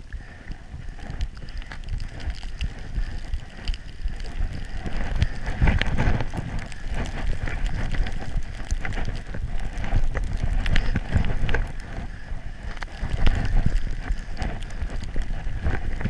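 Skis sliding and scraping through snow on a fast downhill run, with wind buffeting the camera microphone. The rumbling hiss gets louder a few seconds in as the skier picks up speed.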